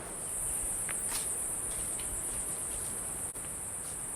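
High, steady insect drone in the forest, with a few faint clicks.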